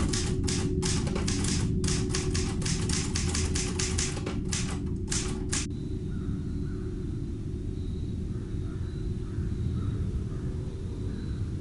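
Manual typewriter keys struck in an irregular run, over a low rumbling drone. The typing stops suddenly about six seconds in, and the drone carries on with faint high sounds above it.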